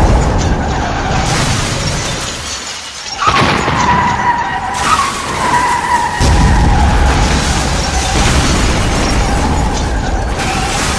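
Homemade fake emergency alert alarm audio: loud harsh noise, then about three seconds in a steady, slightly wavering alarm tone starts and holds over it, with the low noise swelling back under it a few seconds later.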